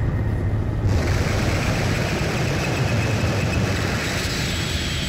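Harsh noise music: a dense wall of distorted electronic noise over a heavy low rumble. A brighter hiss comes in about a second in, with a thin steady high whine on top.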